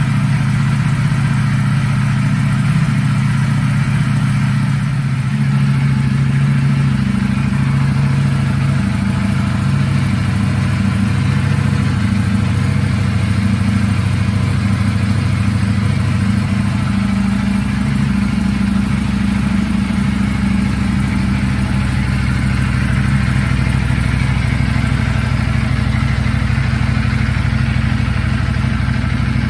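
2020 Ducati Panigale V4S's 1,103 cc V4 engine idling steadily after a cold start.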